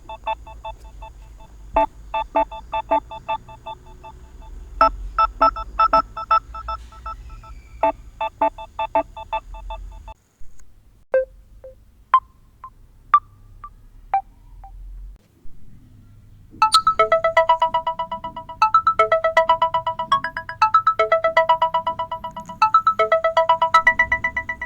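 Phone ringtones played one after another. A quick melody of short beeping notes runs for about the first ten seconds, followed by a few scattered single notes. About two-thirds of the way in a different melody of longer held electronic tones begins and repeats.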